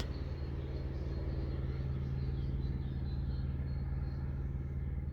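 Distant helicopter flying, a steady low drone that holds an even pitch.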